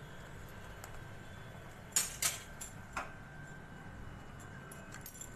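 Three short, sharp clinks of kitchenware, about two to three seconds in, over a low steady hum.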